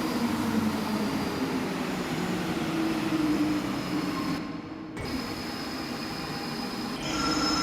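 Santiago Metro NS-16 train running, with a low, shifting whine that dies down about four and a half seconds in. Steady high-pitched tones start near the end.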